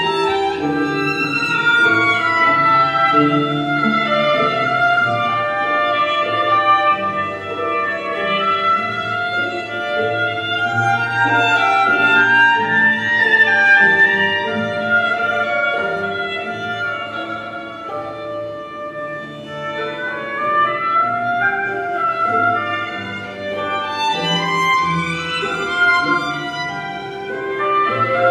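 Instrumental music with a bowed-string melody over lower sustained notes, quieter for a few seconds past the middle before swelling again.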